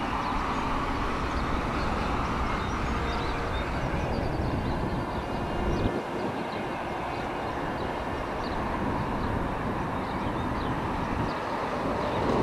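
Outdoor background noise: a steady rumble and hiss that eases briefly about halfway, with faint short high chirps over it.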